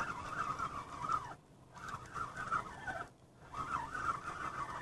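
Spinning reel being cranked to bring in a hooked fish: a whirring whine from the reel that wavers in pitch as the handle turns, stopping briefly twice when the cranking pauses.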